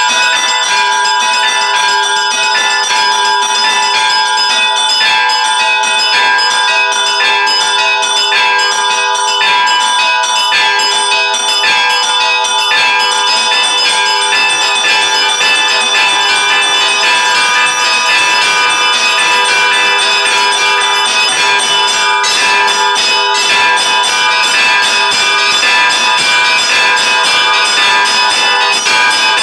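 Several church bells ringing together in a continuous peal, with many strokes overlapping over the sustained ring of the bells.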